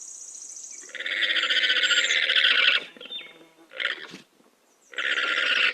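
Llama calling: three rough, drawn-out calls, the first and longest lasting about two seconds, then a short one and another near the end.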